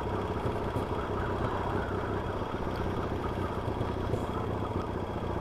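Yamaha XS650 parallel-twin engine running steadily on the move, with a tapping the rider takes for a worn small end on the crank.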